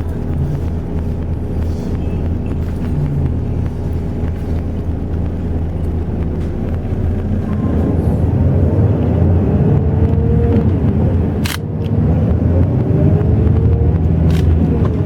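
Intercity highway bus driving, its engine and road rumble running steadily; the engine note rises and grows louder about halfway through. A few sharp clicks or rattles come near the end.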